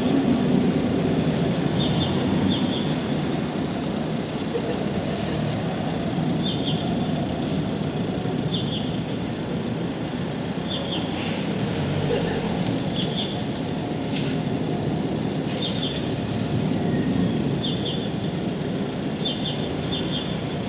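A bird repeating a short high chirping phrase about every two seconds, over a louder steady low rumble of background noise.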